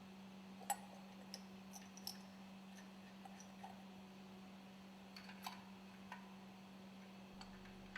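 Faint, irregular small clicks and light ticks, the sharpest about a second in, over a steady low hum.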